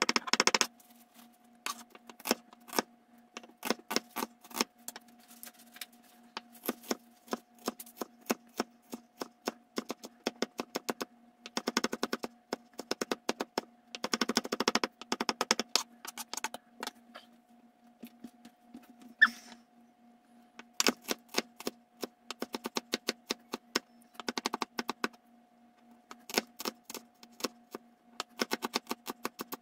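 Kitchen knife dicing red onion on a wooden cutting board: quick runs of sharp knocks as the blade strikes the board, in bursts with short pauses. About two-thirds of the way through comes one louder knock with a brief ring. A faint steady hum runs underneath.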